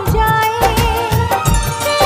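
Bollywood film song playing as background music: a held, gliding melody over a steady, thumping beat.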